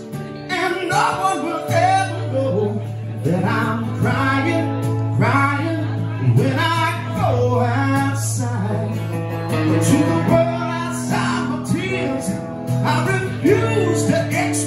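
Live acoustic and electric guitar music: the acoustic guitar is strummed while a melody bends up and down in pitch over a steady low held note.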